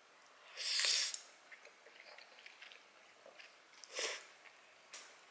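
Instant noodles slurped up off chopsticks twice, a longer hissing slurp about a second in and a shorter one near the end, with faint chewing in between.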